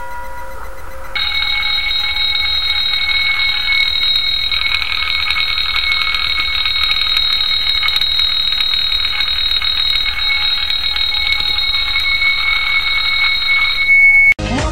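Alarm bell ringing continuously and loudly with a rapid metallic rattle. It starts about a second in and cuts off abruptly near the end. Before it, a sustained chime tone dies away.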